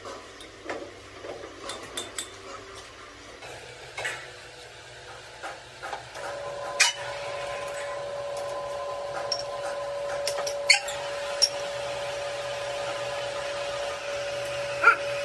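Metal parts and hand tools clinking and knocking, then about six seconds in a machine starts up with a steady whine that holds, with a few sharp metal knocks over it.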